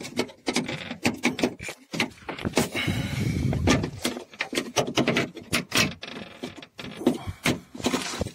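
Irregular metallic clicks and knocks of a bolt and hand tools being worked at a car's door check mount as the bolt is screwed in, with a longer scraping rustle about three seconds in.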